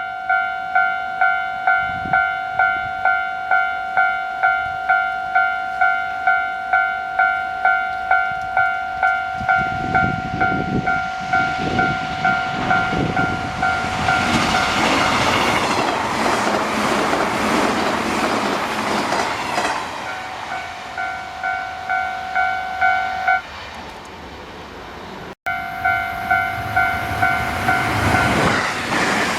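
Japanese level-crossing warning bell ringing a steady electronic ding-ding, about one and a half strikes a second. An electric train rumbles up and clatters rhythmically over the crossing's rail joints about halfway through. The bell stops soon after the train clears, and after a break it is ringing again near the end.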